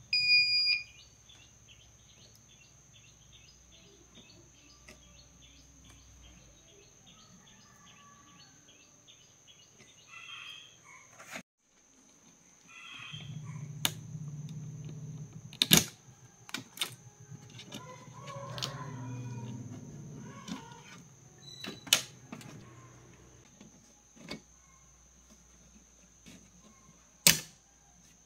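A short electronic beep at the very start, then scattered clicks and sharp knocks from hands handling a TV's power supply board and its sheet-metal chassis, with stretches of rubbing and handling noise. A faint steady high whine runs underneath.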